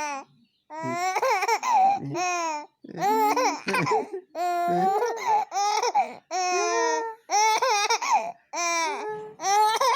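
Baby laughing and babbling in a string of about ten short, high-pitched bursts.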